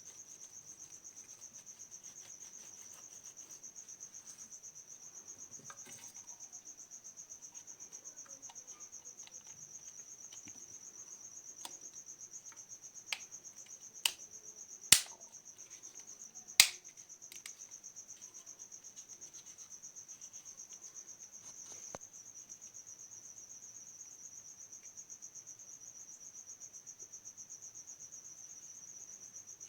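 A cricket trilling steadily and without a break, a thin high rapid pulsing. A few sharp clicks cut in partway through, the loudest two close together around the middle.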